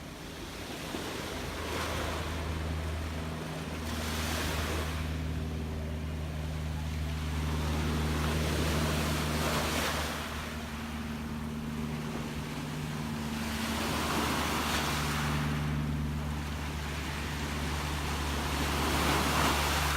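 Gentle sea waves washing in and breaking, one swell about every four to five seconds, over a steady low hum.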